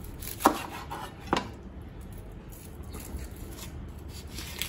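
Two knife chops through a red onion onto a plastic cutting board, about a second apart, followed by soft rubbing and scraping as the onion's papery skin is peeled away by hand.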